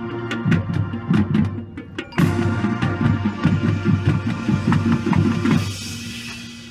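Background music with a steady percussive beat of woodblock-like clicks over a bass line, fading out near the end.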